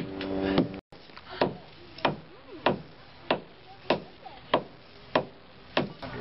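A dugout canoe's wooden hull being hewn by hand with a short-handled steel blade: a run of even, sharp chops, about one and a half a second.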